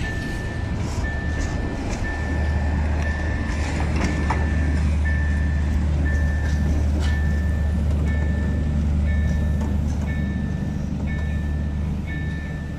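A level-crossing warning signal beeping steadily, about twice a second, with a second higher beep joining in later. Underneath it a passing snowplough train gives a deep diesel drone that swells about two seconds in.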